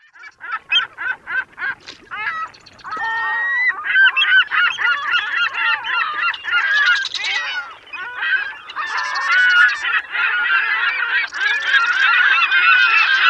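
A flock of birds calling loudly. Separate honking calls come at first, then they build after about two seconds into a dense, overlapping chorus.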